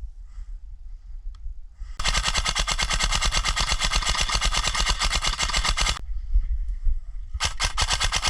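Airsoft rifle firing on full auto: one long burst of about four seconds starting about two seconds in, then a few short rapid bursts near the end.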